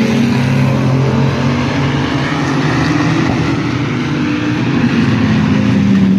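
Engines of a pack of mini trucks racing around an oval track, a steady, loud drone of several engines at once.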